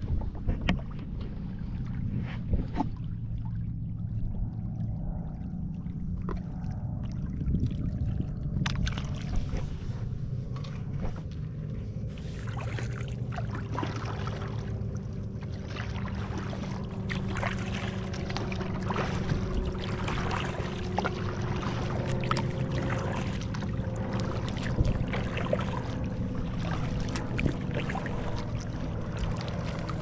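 Kayak on the water: paddle strokes with water splashing and dripping, over a steady low hum.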